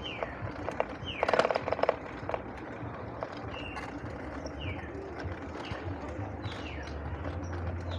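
An e-bike rattling and humming as it rolls over paving, with a loud burst of clattering about a second in, while a bird repeats short descending whistled calls about once a second.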